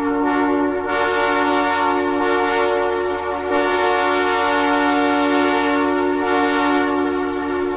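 Multi-chime locomotive air horn sounding a held chord of several notes in long blasts that run almost into one another, each re-sounding about one, three and a half and six seconds in.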